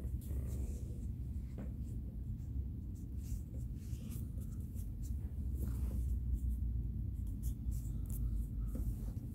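Rubbing and light clicks from a handheld phone being moved around, over a steady low room rumble.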